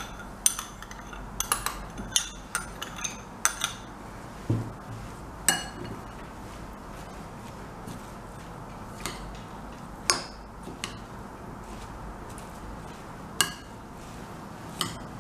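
Metal utensil clinking against a salad bowl while tossing parsley salad. The clinks come several close together in the first few seconds, then singly every second or few.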